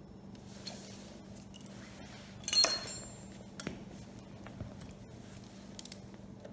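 Metal hand tools clinking as a socket and torque wrench are picked up and handled: a short clatter about two and a half seconds in, then a few lighter clicks.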